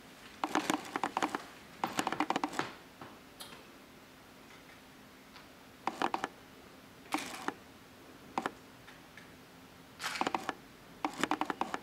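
Quick plastic clicks from a camera and a Meike FC-110 ring flash being handled and adjusted, coming in about seven short runs of rapid clicks.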